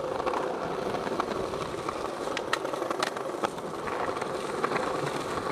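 Skateboard wheels rolling steadily over paving stones, a continuous rumbling hiss broken by scattered sharp clicks.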